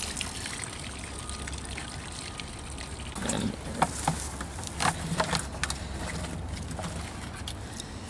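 Water splashing and trickling in a plastic bucket as a pond sample of mud and plants from a long-handled dip net is emptied and rinsed into the bucket's water. It comes as a run of wet splashes and clicks starting about three seconds in.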